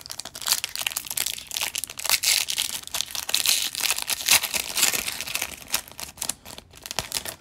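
Foil wrapper of an O-Pee-Chee Platinum hockey card pack being torn open and crinkled by hand, a dense run of crackles and tearing noise.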